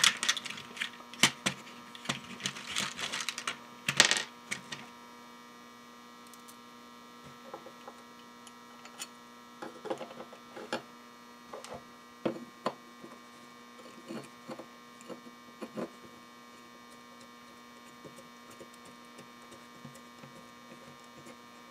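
Small metal screws, nuts and washers clinking and rattling as they are picked out of a plastic parts organizer, then scattered small clicks and taps as parts are handled, over a steady electrical hum.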